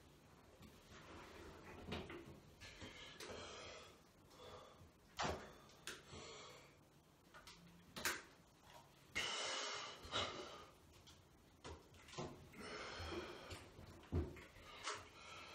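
Faint wet squelching and smearing of thick cake batter and Angel Delight as hands rub it over a soaked dress and into hair, with several sharp wet slaps.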